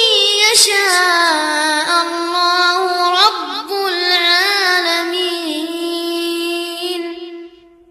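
Melodic Quran recitation by a high young voice, drawing out the closing words of a surah's last verse in long, wavering held notes. It fades out near the end.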